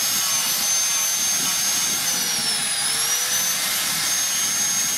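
Electric angle grinder fitted with a foam-backed sanding pad, running with a high motor whine while a wooden knife handle is sanded against it. The whine dips in pitch and comes back up about three seconds in.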